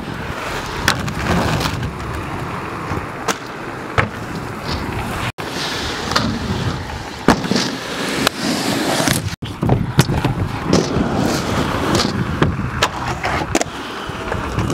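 Skateboard wheels rolling on concrete, with sharp clacks and knocks of the board hitting the ground and ramps several times. The sound drops out for a split second twice.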